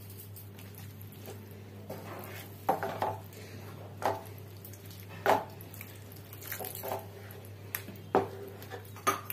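A slotted spatula stirring water into thick masala curry in a nonstick frying pan, with irregular scrapes and knocks against the pan, several in the second half. A steady low hum runs underneath.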